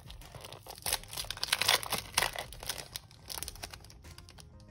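Clear plastic packaging sleeve crinkling as hands handle the wrapped sheet inside it: a dense run of crackles starting about a second in and fading out after about three seconds.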